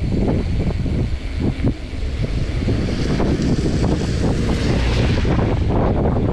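Loud wind noise buffeting the microphone while riding, an uneven rush of air that gusts and flickers, growing hissier for a couple of seconds near the middle.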